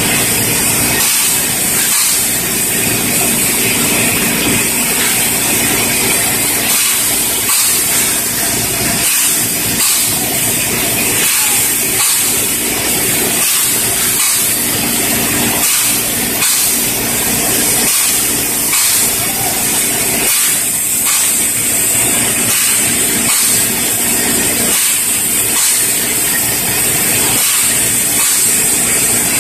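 Paint spray gun hissing steadily and loudly over a low machinery rumble.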